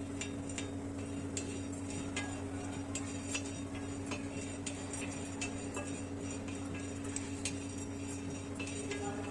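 Whole cloves and black peppercorns dry-roasting on a hot tawa, crackling with irregular sharp ticks and pops as they heat through, under a steady low hum.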